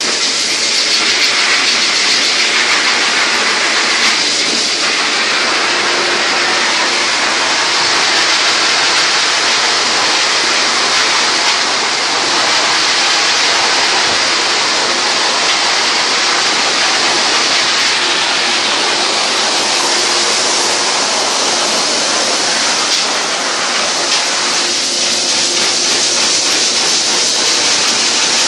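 High-velocity pet grooming dryer blowing a steady, loud rush of air through a dog's thick dry coat, forcing out loose hair and dead skin before the bath. A faint motor hum comes and goes under the hiss.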